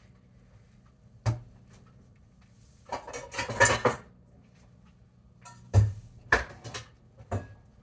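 Kitchen clatter: a sharp knock, then a spell of rattling and clinking, then several more knocks, as dishes, containers and utensils are handled, over a faint steady low hum.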